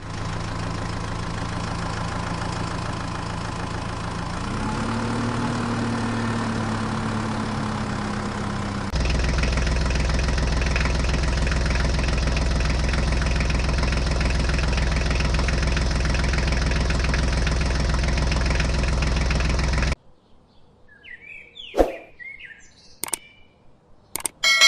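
Tractor engine running steadily, its note rising slightly about four seconds in and getting louder about nine seconds in. It cuts off suddenly near the end, leaving a few sharp clicks, short chirps and a ringing metallic clang.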